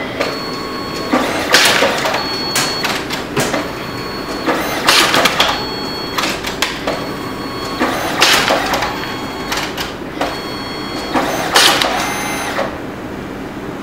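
DNP DS620 dye-sublimation photo printer printing its test prints after ribbon and paper are loaded: a mechanical whirring with repeated swishing strokes, loudest about every three seconds. It stops shortly before the end.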